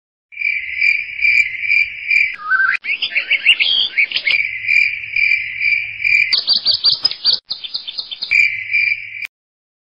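Crickets chirping in a steady, pulsing trill, a night-time sound effect. It is broken twice by other short chirping calls, once about two and a half seconds in and again past the middle, and stops shortly before the end.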